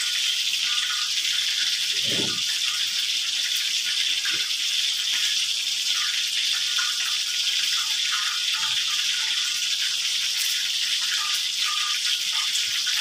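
A steady, even hiss, with a short low sound about two seconds in and a few faint soft ticks.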